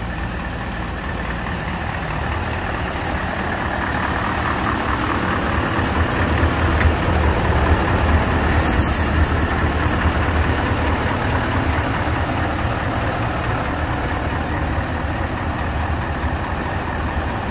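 Mercedes-Benz SK 2544 tipper's V8 diesel engine running steadily while the hydraulic tipping body is raised. It grows louder a few seconds in, with a short hiss about halfway through.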